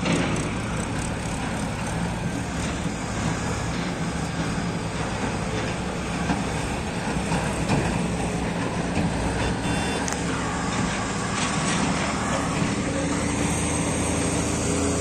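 Diesel engines of a farm tractor and a backhoe loader running steadily under load as they work close together on a dirt ramp. A brief high-pitched tone sounds about ten seconds in.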